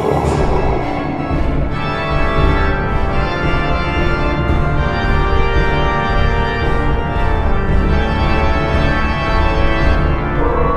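Eerie organ music playing long, sustained chords.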